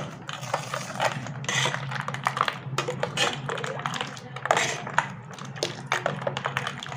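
Steel ladle stirring juice fast in a stainless-steel bowl: irregular metal clinks against the bowl with sloshing liquid.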